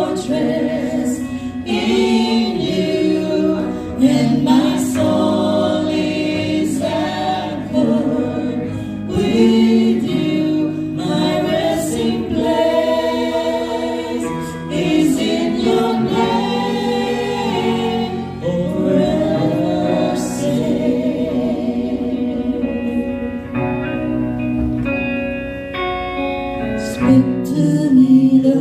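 A worship team of men and women singing a Christian worship song together into microphones, amplified through a PA.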